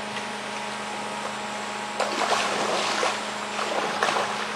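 Paddle strokes splashing in the water beside an inflatable boat, with a couple of splashy surges in the second half, over a steady low hum.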